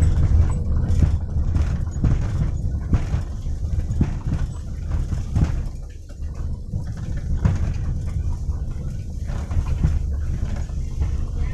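Daihatsu Xenia's rear suspension knocking irregularly as the car goes over a potholed road, a clunk like metal on metal over steady road rumble inside the cabin. The owner takes it for worn rubber bushings in the rear stabilizer and lateral links and the shock absorbers, typical of an ageing Xenia/Avanza.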